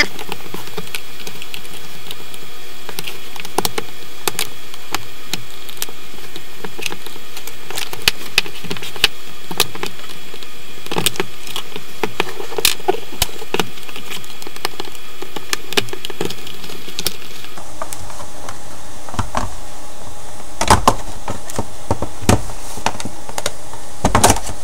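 Small plastic clicks and snaps as the rear cover of a Samsung Galaxy Tab 10.1 is pried off its clips with a pick and putty knife, over a steady hiss. A few louder knocks come near the end.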